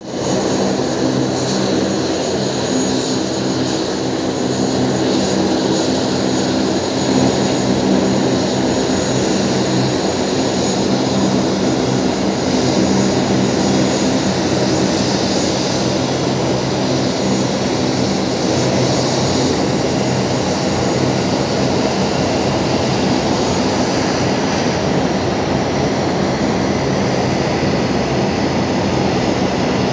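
Twin turboprop engines of a De Havilland Canada Dash 8-400 (Q400) running at taxi power as the aircraft rolls past: a steady propeller drone with a thin high turbine whine above it.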